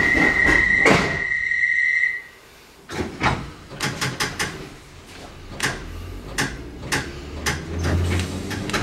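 Bakerloo line 1972 Mk2 Stock tube train at a platform: a steady high tone stops about two seconds in, after a knock about a second in. The train then pulls away, with a run of sharp clicks and a low hum that builds toward the end.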